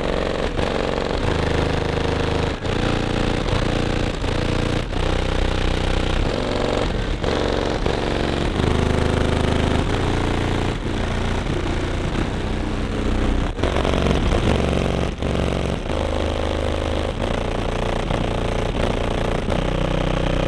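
Bass-heavy music played very loud through six Sundown Nightshade 18-inch subwoofers in a folded horn box. Deep bass notes step from pitch to pitch every half second to a second or so under a dense, distorted buzz.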